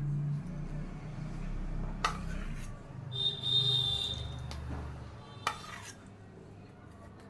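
Small steel bowl clinking and scraping against metal vessels as curd is scooped from a steel container and poured onto flour in a metal mixing pan. It gives a few sharp clinks and a brief high metallic squeal about three seconds in, over a low steady hum.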